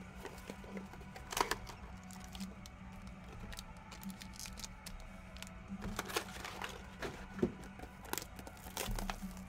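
Trading-card boxes and packs handled on a table: plastic wrapper crinkling and tearing, with a few sharp taps and crackles scattered through.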